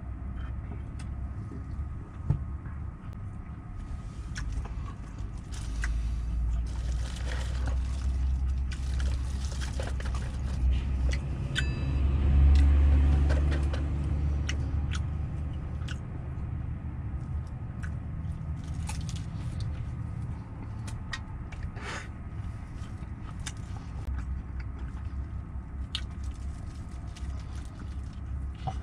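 Low rumble of vehicle engines, swelling to its loudest about twelve seconds in, as if one moves close. Over it come scattered crunches and rustles of fried chicken being handled and eaten.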